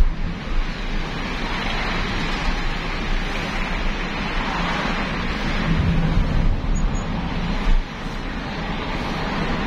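Steady road and engine noise heard inside a moving car's cabin, an even rushing hum with a low rumble underneath.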